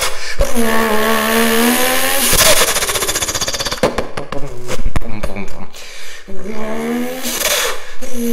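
A man imitating a turbocharged Toyota Supra with his voice, blowing through the core of a paper towel roll onto a microphone. He voices rising and falling engine revs, then a rapid flutter, a few sharp pops, another rev and a breathy hiss burst near the end.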